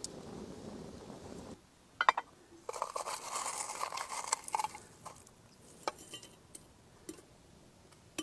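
A pot boiling at a steady bubble, which cuts off after about a second and a half. Then there are sharp clinks of a glass teapot and its steel infuser, a scraping noise lasting about two seconds, and a few light taps.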